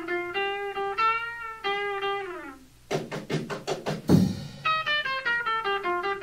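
Guitar playing a run of single held notes, then a quick burst of strummed chords ending in a heavy low hit about four seconds in, then a falling run of single notes: a band's instrumental lead-in during a 1950s studio take.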